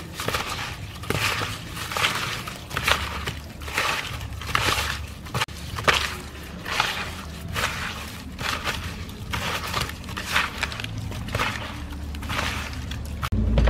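Hands scrubbing whole eels with salt in a plastic basin to clean them: wet, gritty rubbing strokes, roughly one a second.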